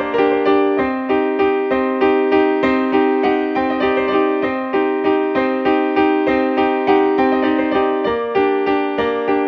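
Background music on a piano-like keyboard playing an even pulse of repeated, pitched notes, each struck and then fading.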